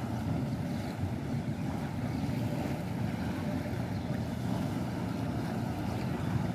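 Steady drone of the jet ski's engine pumping water up the hose to a flyboard, with wind buffeting the microphone.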